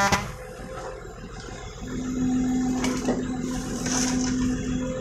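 Diesel engines of an excavator and a dump truck running at a work site. A steady engine drone sets in about two seconds in while the excavator lifts and dumps a bucket of laterite into the truck's bed.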